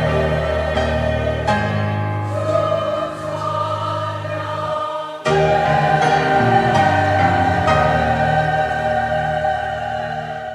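Church choir singing a sacred anthem with accompaniment in sustained chords. About five seconds in there is a short break, then a louder closing phrase is held and ends at the very end.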